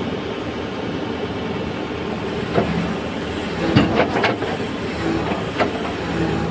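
Heavy diesel engine running steadily, with several sharp knocks or clanks, mostly in the middle.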